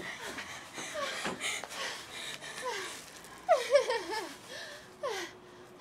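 Out-of-breath panting and laughter from girls who have just been running, with the loudest burst of laughing about three and a half seconds in and a shorter one near the end.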